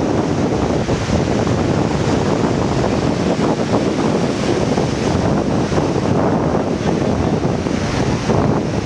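Strong wind buffeting the microphone, a steady loud noise, with surf washing around the rocks beneath it.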